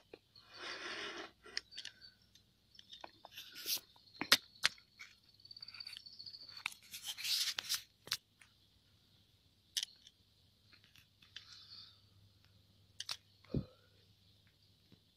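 Handling noise from a hand-held phone camera being moved: scattered sharp clicks and two longer rustles over a faint, steady high hiss.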